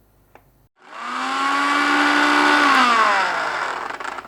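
Kitchen mixer grinder's motor run in a single short pulse of about three seconds, spinning up quickly and then winding down in pitch as it is released. It is blending powders that are already ground, not grinding whole spices.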